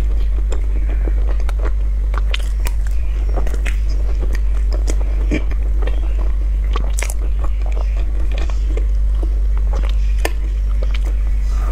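Close-miked mouth sounds of a person biting into and chewing a soft, powdered mochi dessert: irregular wet clicks and smacks, over a steady low hum.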